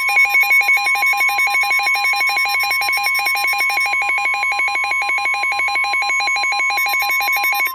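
Emergency alert tones for a flash flood warning: a steady tone near 1 kHz, the weather-radio warning alarm tone, layered with a loud, rapidly warbling alarm that pulses about ten times a second.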